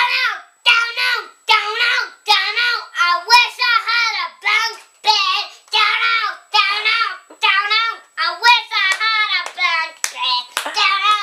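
A young boy singing unaccompanied in a high child's voice, in short phrases that rise and fall.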